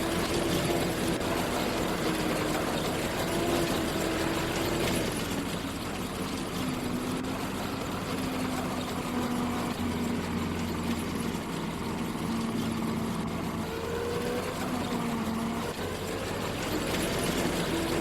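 Engine of harvest machinery running steadily, its pitch dropping about five seconds in and rising again near the end as it changes speed.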